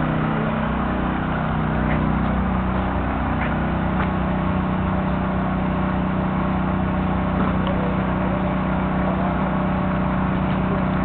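P25 mortar pump's engine running at a steady drone while it pumps grout through the hoses to two grout guns.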